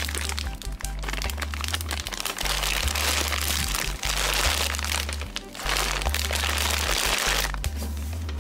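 Plastic candy bag crinkling in stretches as it is handled, over background music with a steady, repeating bass line.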